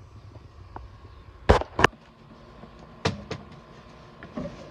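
Heavy footsteps and knocks on the wooden companionway steps of an old wooden yawl as someone climbs down into the cabin: two pairs of sharp thuds, then a lighter one near the end.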